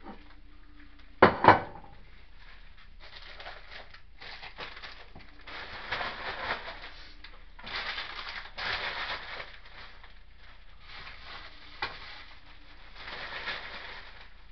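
Kitchen items being handled on a worktop: two sharp knocks about a second in, then bouts of rustling and scraping, with a single click near the end.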